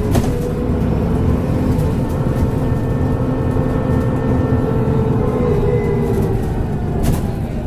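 Transbus Trident double-decker bus running under way, a steady diesel drone with a thin turbocharger whistle over it that drifts gently in pitch. A couple of short knocks, one at the start and one near the end.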